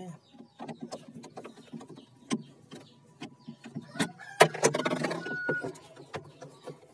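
Screwdriver turning rusty screws out of a refrigerator's plastic inner liner: scattered clicks and scraping, with a louder clatter about four and a half seconds in as a loosened screw and its plastic mount come free.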